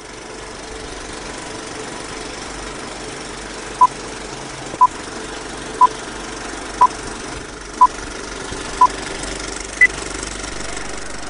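Old-film countdown leader effect: a steady film-projector rattle and hiss under a run of short beeps, one each second, six at the same pitch and then a seventh higher one near the end.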